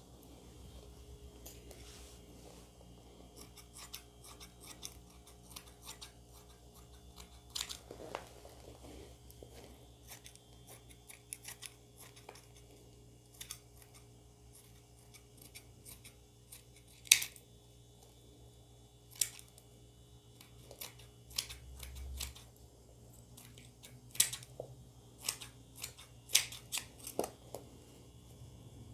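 Scissors cutting through net fabric in scattered, irregular snips, the loudest about seventeen seconds in.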